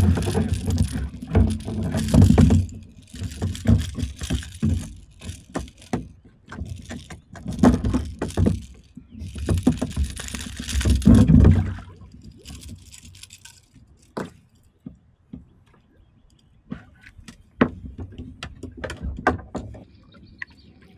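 A small jack flapping and rattling on the line while it is shaken off the hook, in irregular bursts for about the first twelve seconds. After that come scattered sharp knocks of rod and paddle against the kayak.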